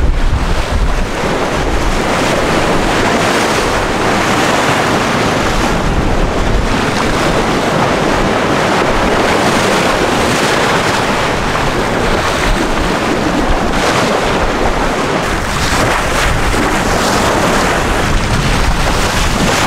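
Loud, steady rush of wind buffeting the microphone over the wash of sea water around a sportfishing boat at sea, with uneven low rumbles.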